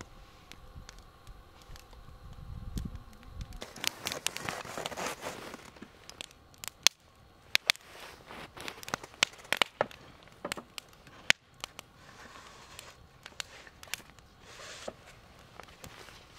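Wood fire in a fire pit crackling, with irregular sharp pops and brief hissing flare-ups, starting about four seconds in after a low rumble.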